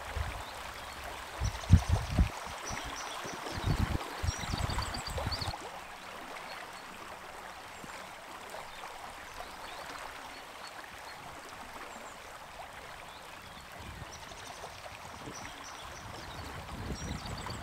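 River water flowing and lapping around paddled kayaks, with a few low thumps and splashes in the first seconds. Small birds chirp in short phrases near the start and again near the end.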